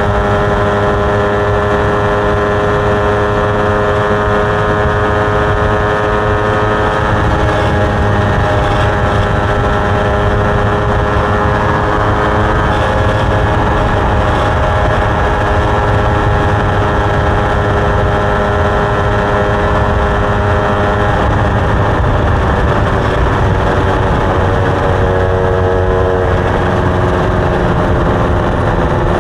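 Motorcycle engine running at a steady speed while riding, over a constant low rush; its tone changes about twenty seconds in.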